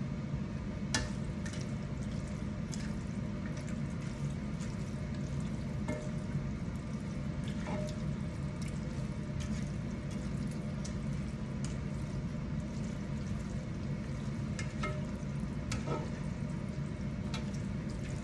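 Rotini in a cream sauce simmering in a skillet while being stirred with a plastic pasta server, with a few light clicks of the server against the pan, over a steady low hum.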